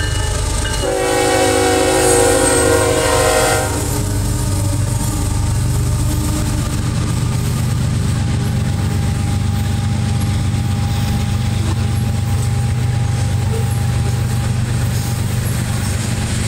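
A GE ES44AH diesel locomotive sounds one long horn blast, about three seconds long starting a second in, as it passes. The engine's steady low rumble and the roll of the covered hopper cars behind it continue after the horn stops.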